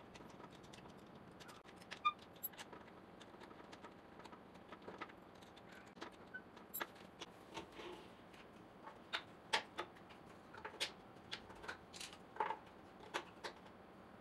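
Scattered light clicks and knocks of wooden flat-pack furniture parts being handled and fitted together: caster wheels pushed into pine legs, then pine rails and slats set onto a laminated board. The knocks come more often and louder in the second half.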